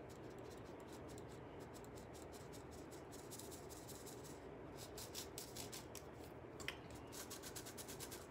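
Fine-mesh metal flour sieve being tapped and shaken by hand as flour sifts through: a faint, irregular run of light ticks and rasps, several a second.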